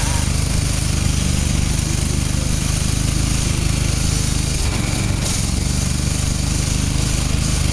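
An engine running steadily at an even speed, with a constant low hum and a hiss over it.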